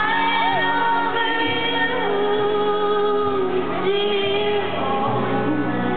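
Live country music: women's voices singing together in harmony, holding long notes, over acoustic guitar and a band.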